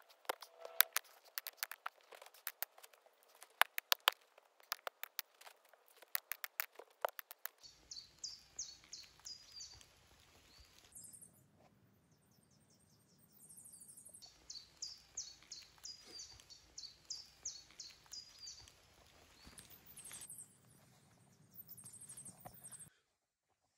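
Irregular sharp clicks and knocks for the first several seconds. Then, about eight seconds in, birds sing in repeated high chirping phrases over a faint outdoor background. The sound cuts off suddenly about a second before the end.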